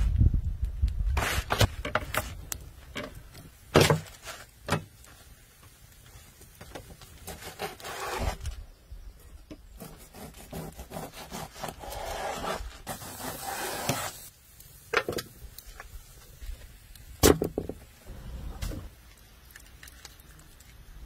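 Kitchen knife cutting and scraping raw sturgeon on a plastic sheet laid over a wooden board: scattered sharp knocks of the blade on the board, with stretches of scraping and plastic rustling.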